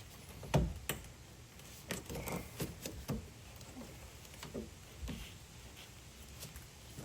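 Scattered light clicks and knocks of hands working a plastic mudflap and its push-in clips into a truck's wheel well, the sharpest knock about half a second in.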